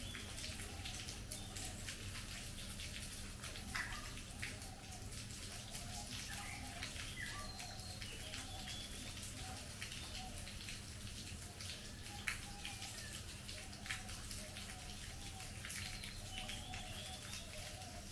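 Monsoon rain falling steadily on trees and foliage, with scattered sharp drips. Birds call repeatedly over it, short warbling phrases and a few higher whistles.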